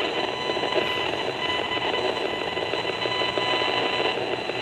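Gigahertz Solutions HF 35C RF analyzer's loudspeaker sounding the signal picked up from a cell tower about 50 feet away: a loud, steady buzzing tone over a harsh hiss, with the meter reading at its maximum.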